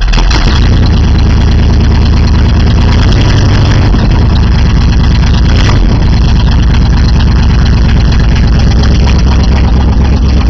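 Chevrolet Scottsdale pickup's 350 small-block V8 running loud and steady just after start-up. Its exhaust is rusted off at the Y-pipe, so the engine is effectively straight-piped. Heard from inside the cab.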